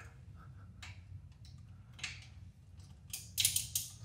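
Metal hand tools clicking as a socket, short extension and 10 mm hex bit are worked on a transmission fill plug: a few faint clicks, then a quick run of sharper clicks near the end.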